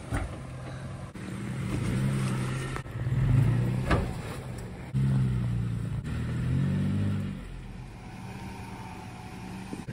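A lifted Nissan Xterra's V6 engine revving up and down as it crawls off-road through ruts and over rocks, with a sharp knock about four seconds in.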